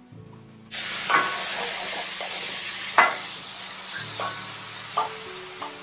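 Sliced mushrooms sizzling in a frying pan as they are stirred with a wooden spoon, the spoon knocking against the pan now and then. The sizzle starts suddenly about a second in.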